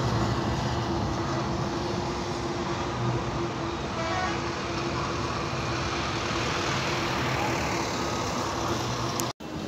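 Street traffic and a tram moving along the track: a steady rumble of road noise with a constant hum. The sound cuts out abruptly for a moment near the end.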